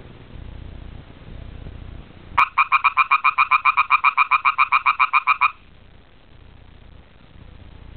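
A frog calling: one rapid, even trill of about eight pulses a second, starting a couple of seconds in and lasting about three seconds.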